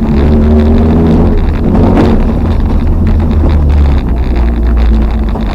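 Toyota RAV4's 3S-GE four-cylinder engine running hard under load, heard from inside the cabin, with frequent knocks and rattles as the car is thrown over rough ground. The engine note shifts about four seconds in.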